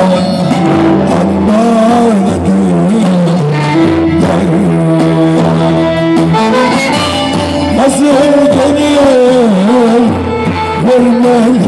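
Turkish folk tune played on violin and bağlama (long-necked saz lute), with a man's voice singing along through a microphone.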